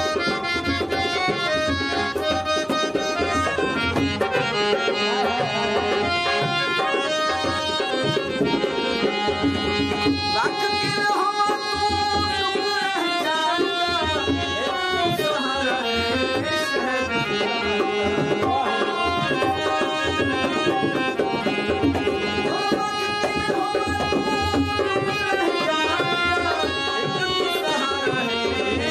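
Music with tabla drumming under a melodic line of gliding, sustained notes.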